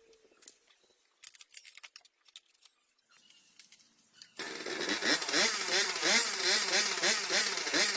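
A few faint clicks, then about four seconds in the small two-stroke engine of a Yamaha Chappy moped comes in loud and runs with its pitch rising and falling in quick, repeated swells.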